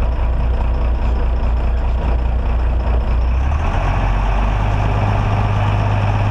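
Fishing boat's engine running steadily under way, a deep drone with the rush of wind and water over it. The low hum shifts higher about three and a half seconds in.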